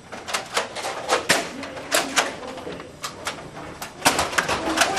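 Nerf blasters being fired and foam darts striking: an irregular string of sharp clicks and knocks, coming faster and louder about four seconds in.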